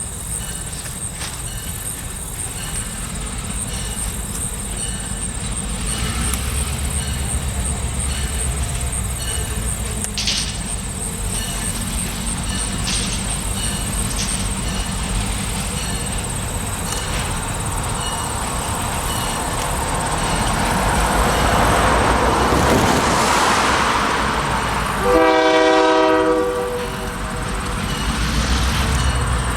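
Diesel freight locomotive drawing near, its engine rumble and the rail noise building steadily, then one short horn blast near the end.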